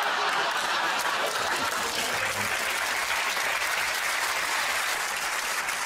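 Studio audience applauding, a dense steady clapping that eases slightly near the end.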